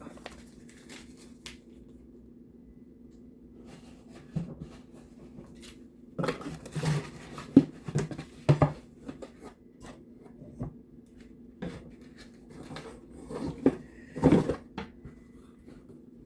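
Handling noises as a bird feeder and its paper instructions are packed back into a cardboard box: scattered knocks, clicks and rustles, heaviest around the middle and near the end, over a steady low hum.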